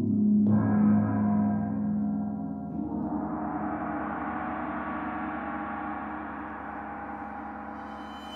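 Hanging bossed gongs struck and ringing in low tones, with a fresh strike about half a second in. From about three seconds in a brighter, shimmering metallic ring builds and slowly dies away, and a high metallic sizzle joins near the end.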